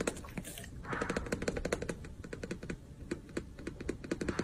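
Golden retriever licking and smacking its lips, a quick run of small wet clicks with a short breath about a second in.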